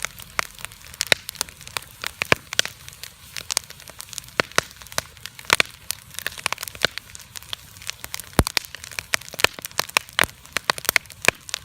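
Campfire burning with dense, irregular crackling and sharp pops from the burning wood.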